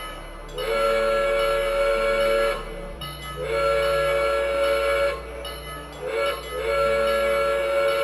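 Model locomotive's electronic sound-system whistle blowing a long, long, short, long pattern, the grade-crossing signal.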